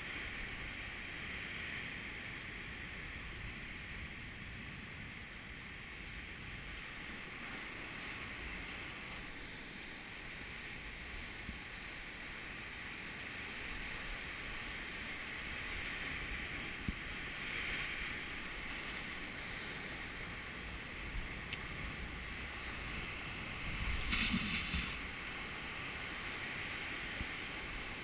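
Sea surf breaking and washing over coastal rocks, a steady churning rush, with wind on the microphone. A louder rush comes a little before the end.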